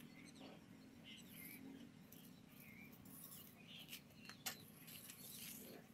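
Near silence with faint, scattered bird chirps and a couple of sharp clicks about four and a half seconds in.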